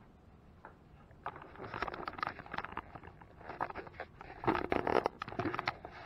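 Handling noise from a hand-held camera being picked up and moved: irregular rustling, scraping and small knocks that start about a second in and grow louder toward the end.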